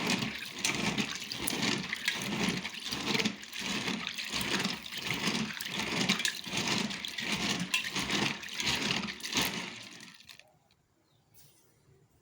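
Palm kernel nuts being washed by hand in a bowl of water: water sloshing in an even rhythm of a little under two strokes a second, dying away about ten seconds in.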